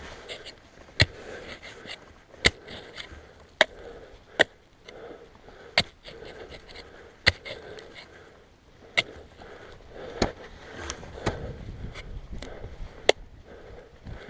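Ice axe and cramponed boots striking into hard snow during a steep snow-gully climb: a sharp, loud strike about every second and a half, with crunching and scraping snow in between.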